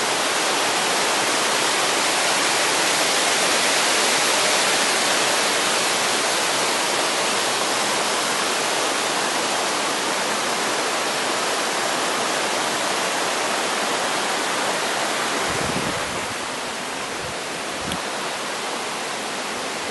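Mountain stream rushing and splashing over rocks in small cascades, a steady loud rush of water. It drops slightly in level near the end, where there is a brief low thump.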